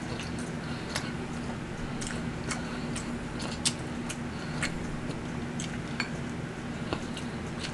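Close-miked eating sounds: chewing with scattered sharp mouth and utensil clicks, irregular and a dozen or so, over a steady low hum.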